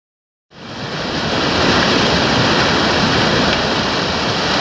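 Whitewater rapids pouring over rock ledges: a loud, steady rushing that fades in about half a second in.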